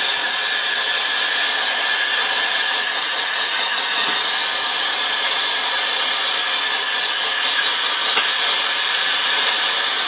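Air-acetylene torch with a number 3 tip burning steadily: a loud, even hiss with a steady high whistle running through it. The flame is preheating an aluminium joint for brazing.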